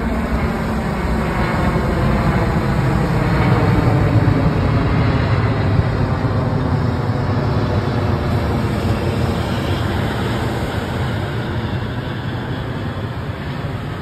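Large military transport jet flying low overhead, its engine noise swelling to a peak about halfway in and then slowly fading as it passes.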